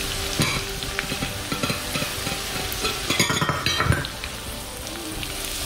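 Chopped onion, leek, green pepper and garlic sizzling in hot oil in a frying pan, with a steady hiss. A utensil clicks and scrapes against the pan as they are stirred, busiest between about three and four seconds in.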